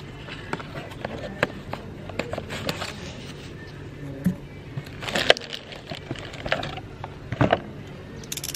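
Hands opening a cardboard box and pulling out a blood pressure cuff wrapped in a plastic bag: irregular clicks, scrapes and crinkles of cardboard and plastic, loudest about halfway through and again near the end.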